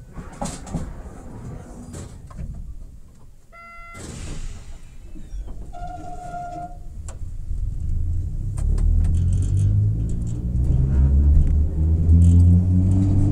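Enoden electric train (10-type and 1000-type cars) starting off from a stop: after a few clicks and two short tones, a low rumble from the motors and wheels builds about halfway through and grows louder and slightly higher as the train picks up speed.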